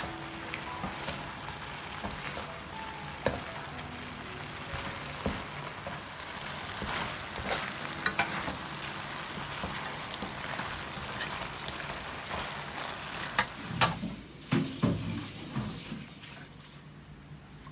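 Frog meat with holy basil stir-frying in a pan. The oil sizzles steadily and a utensil clicks and scrapes against the pan now and then. The sizzle dies down near the end.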